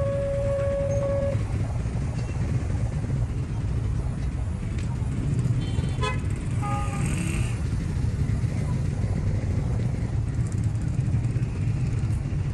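Steady low rumble with horns: a held horn note that stops about a second in, then short horn toots around six to seven seconds in.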